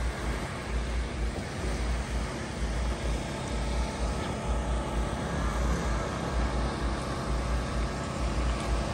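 Wind buffeting the microphone in irregular deep gusts, over a steady outdoor hiss.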